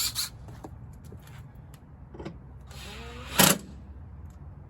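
A 3/8-inch impact driver running in short bursts as it drives in the snowblower fuel tank's mounting screws: a brief burst at the start, then a longer one about three seconds in that rises in pitch and ends loudest.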